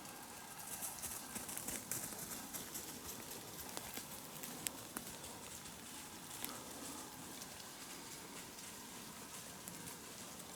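Leaves loosened by the first frost falling in numbers through the branches, a light, irregular patter of small ticks over a faint steady rustle. The ticks are thickest in the first couple of seconds.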